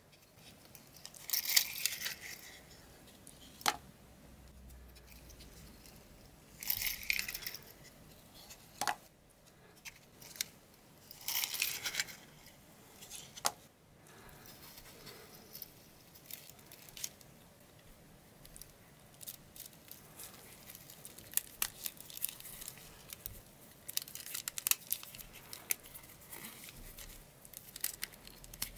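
Wooden matches and cardboard matchboxes handled in nitrile-gloved hands. There are three short rustling, scraping bursts as matches are slid out of their boxes into a hand, a few sharp clicks, and later many light clicks and taps of match sticks against each other.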